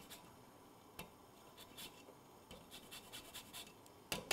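Lime peel being grated on a Microplane zester: faint, quick scraping strokes in short runs, louder near the end.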